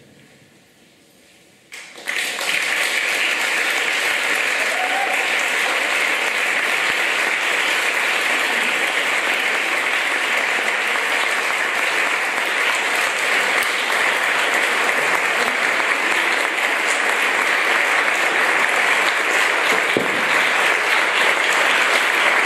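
Audience applauding, starting suddenly about two seconds in and carrying on steadily, growing a little louder near the end.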